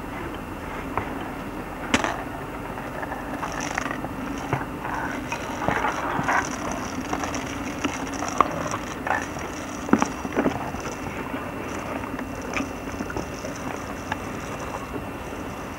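Scattered clicks and knocks from a pony's saddle tack being handled and its hooves on the path, over a steady low hum; the sharpest knocks come about two seconds and ten seconds in.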